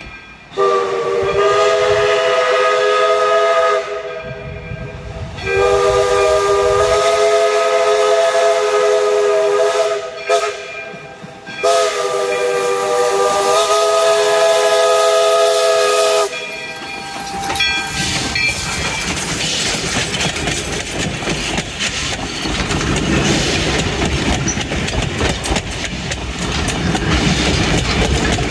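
Northern Pacific No. 924 steam locomotive's whistle blowing the grade-crossing signal: two long blasts, one short, one long. Then the train rolls past close by, the passenger coaches rumbling with wheel clatter over the rails.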